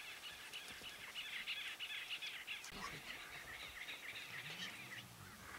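Birds chirping and calling together, a dense chatter of many short calls that thins out just before the end.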